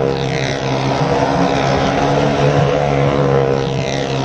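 Motorcycle engine running steadily at a near-constant pitch as the bike circles the wall of a well-of-death drum.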